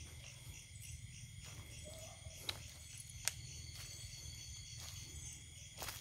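Insects, likely crickets, trilling steadily at a high pitch over a low rumble. A few sharp clicks cut through, two of them close together about halfway.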